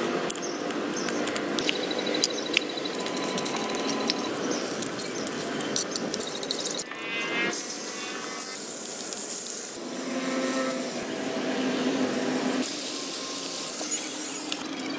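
Meat cooking in a small pot of liquid over a wood fire, sizzling and bubbling steadily, with scattered clicks of metal tongs against the pot.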